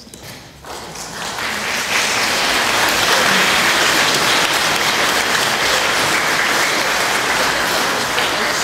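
A large congregation applauding: the clapping starts under a second in, builds to full strength over the next second, then holds loud and steady.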